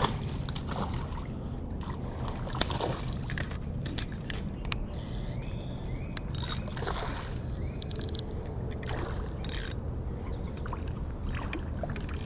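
A hooked smallmouth bass splashing at the water's surface, followed by a spinning reel being cranked to bring the fish in, with scattered clicks and brief splashy hisses.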